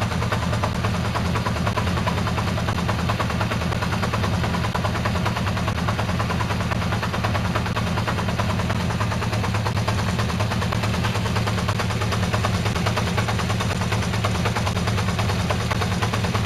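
Honda CB400 Four's air-cooled inline-four engine idling steadily with its four carburettors out of balance. The beat is hard and pulsing, so that it sounds like a diesel engine.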